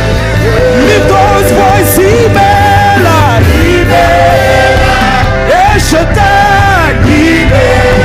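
Live gospel worship music: a band playing with singing over it, the melody rising and falling in long sliding lines.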